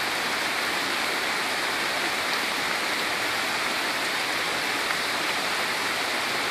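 Rain falling steadily in a storm, an even hiss that does not change.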